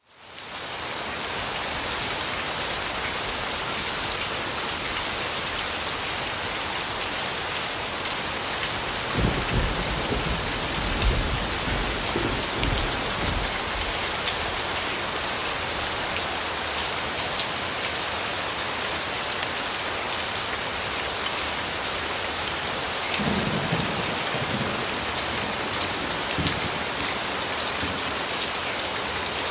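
Steady rain falling, fading in quickly at the start, with low rumbles of thunder about nine seconds in and again past twenty seconds.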